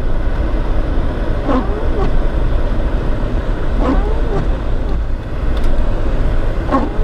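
Jeep Wrangler driving through snow, heard from inside the cabin: a steady low rumble of engine and road, with a short gliding squeak and click coming back about every two and a half seconds.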